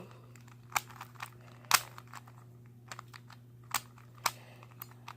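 Plastic clicks of a DaYan stickerless 3x3 speed cube's layers being turned by hand, irregular and about one to two a second, with one louder snap a little under two seconds in.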